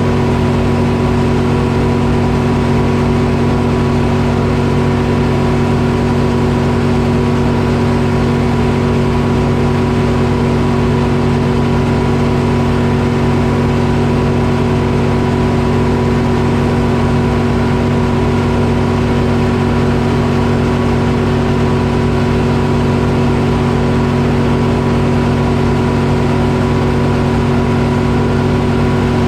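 Detroit Diesel engine powering a Frick sawmill, running steadily at an unchanging speed.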